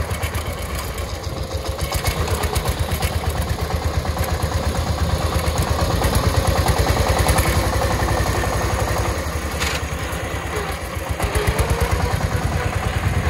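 Single-cylinder diesel engine of a two-wheel power tiller running under way, its firing rapid and even, getting a little louder around the middle and again near the end.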